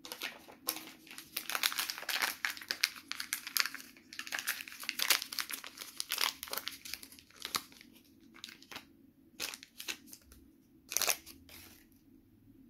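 Small plastic toy packet being torn open and crinkled by hand: dense crinkling for the first seven seconds or so, then scattered crackles, with one louder crackle near the end.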